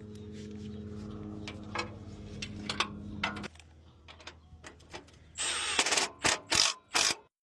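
A power tool's electric motor running steadily for about three and a half seconds, then cutting off. Near the end comes a short rush of hissing noise and several short, loud bursts.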